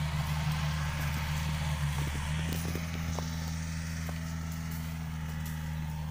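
Two-wheel hand tractor's engine running steadily as it tills the dry field: a low, even hum that shifts slightly in pitch about two seconds in, with a few faint clicks.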